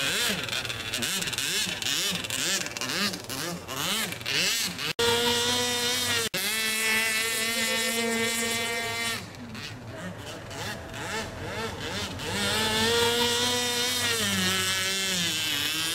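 Pro Boat Blackjack 55 RC speedboat's gasoline engine running at speed on the water. Its pitch swoops up and down for the first few seconds, holds a steady high note for several seconds from about five seconds in, then dips and climbs again. The sound cuts out briefly twice around five and six seconds.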